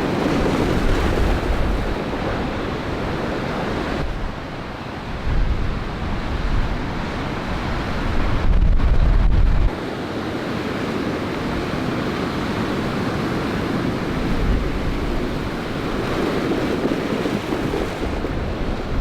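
Large lake waves crashing and surging in a gale, with strong wind gusts buffeting the microphone in deep rumbles. The loudest gust comes just before the halfway point and cuts off suddenly.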